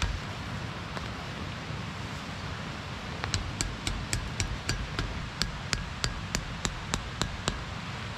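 Repeated hammering blows, evenly spaced at about three a second, starting about three seconds in, over a steady background hiss.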